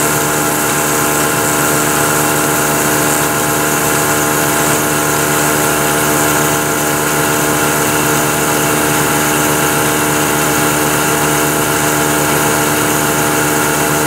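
Vertical milling machine spindle running at its top speed while a small 3/32-inch end mill feeds along a groove in a metal part, cutting chips. It gives a steady whine made of many tones, with no change in pitch or level.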